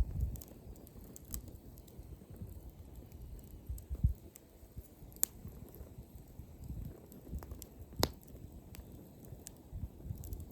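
Wood campfire crackling, with scattered sharp pops of burning wood; the loudest come about five and eight seconds in. A low, uneven rumble runs underneath.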